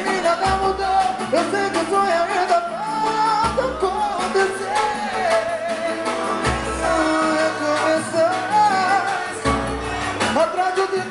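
Live band music: a male singer sings over guitars and a hand drum, with a deep bass note about every three seconds.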